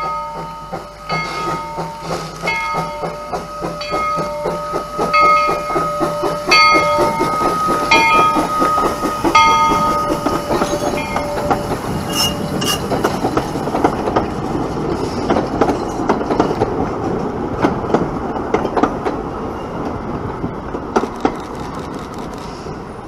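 Narrow-gauge steam train passing a grade crossing. The bell of the two-foot-gauge 1913 Baldwin locomotive rings steadily, about one and a half strokes a second, over the engine's exhaust and wheel clatter, and stops about eleven seconds in. After that the freight cars and coach rumble and click over the rail joints, with a brief high squeal about twelve seconds in and a few last clicks near the end.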